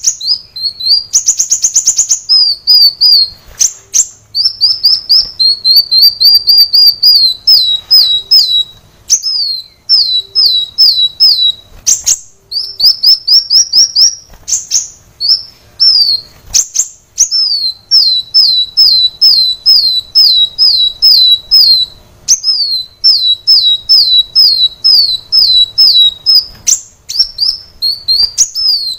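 Kolibri wulung sunbird singing: phrases of quick, high, downward-slurred notes, each phrase a few seconds long with short pauses between, and one fast buzzy trill about two seconds in.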